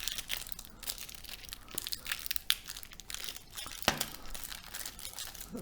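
Crinkling and crackling as the taped winding of a transformer coil is handled and unwrapped, the tape layers and heavy copper wire rustling, with scattered sharp clicks and one louder click about four seconds in.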